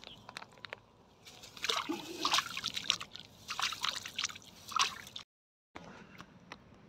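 Water sloshing and splashing in quick, irregular bursts as a mesh keep net holding crucian carp and tilapia is hauled up at the water's edge, the fish thrashing inside. The splashing stops abruptly a little after five seconds in.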